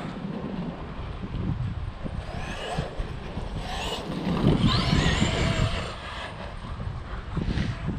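Electric RC car's motor whining, rising and falling in pitch as it is throttled up and let off, loudest around the middle, over a low rumble of the car running.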